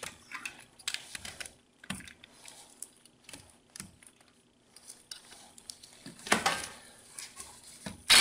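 Scattered light metallic clinks and taps as the socket of an electric impact wrench is worked onto a rusty hub bolt, with a louder clank about six seconds in.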